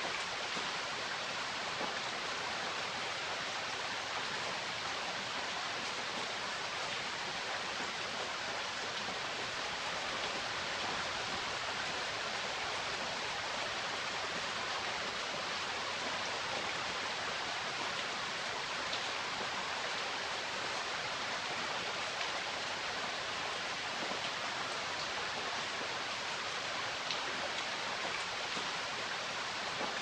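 Steady rain falling, an even unbroken hiss.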